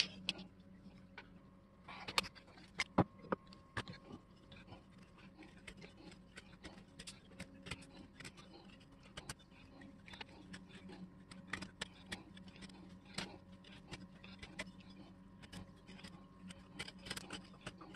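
Knife whittling a wooden dowel: a run of short scraping cuts and sharp clicks as shavings come off, with a few louder clicks about two to four seconds in, over a faint steady hum.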